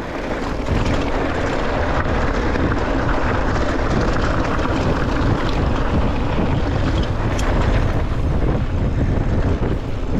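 Wind rushing over the microphone of an on-bike camera and a downhill mountain bike's knobby tyres rolling fast over loose gravel and rock. The noise grows louder about a second in, with scattered small clicks and rattles over bumps.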